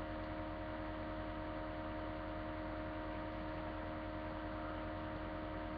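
Steady electrical hum over a low hiss, the background noise of a webcam's built-in microphone.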